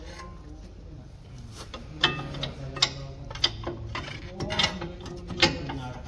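Metal clicks and clanks of rear brake pads being seated in the caliper bracket and the caliper being fitted back over them by hand. The knocks are scattered and irregular, the sharpest about two seconds in and near the end.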